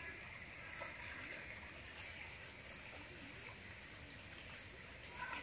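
Faint sloshing and trickling of water as a person wades through a muddy creek, over a steady outdoor hiss.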